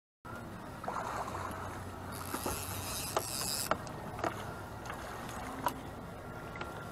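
A blue catfish being scooped up in a landing net beside a boat: water splashes about two to four seconds in, with scattered knocks and clicks of the net and gear against the boat.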